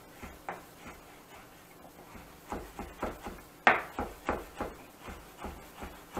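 Knife chopping on a cutting board, finely chopping pickled cucumber. A few scattered knocks at first, then a run of quick strokes about three a second from about two and a half seconds in, with one sharp knock the loudest.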